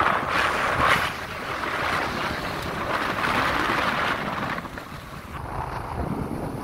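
Wind buffeting the phone's microphone on a moving motor scooter, an uneven rushing noise that rises and falls, easing a little near the end.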